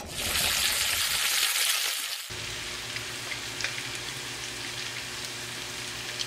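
Scored abalone and sliced garlic sizzling in butter and oil in a frying pan: a loud hiss for about the first two seconds, then steadier sizzling with small crackles over a steady low hum.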